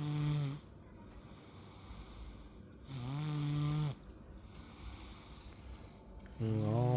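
A young child snoring in sleep: three noisy, pitched snores about three seconds apart, each lasting about a second.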